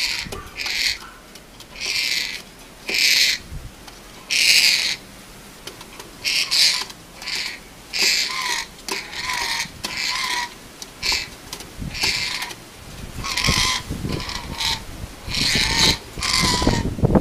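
A bird giving a string of short, harsh hissing calls, roughly one a second.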